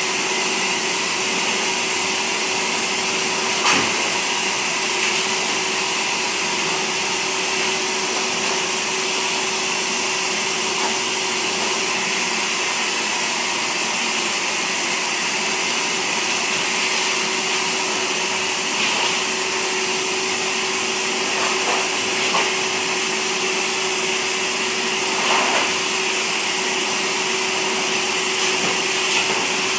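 Pet grooming blow dryer running steadily: a rush of air with a constant hum, with a few brief knocks.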